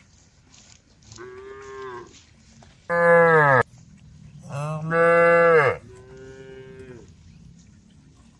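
Cows mooing: four moos in a row, the middle two loud and close, the first of those cutting off abruptly, the first and last fainter.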